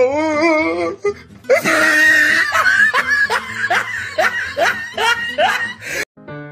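Loud laughter: a laugh with a wobbling pitch, then a long run of hearty repeated laughs, about two a second, that cuts off suddenly near the end as piano music begins.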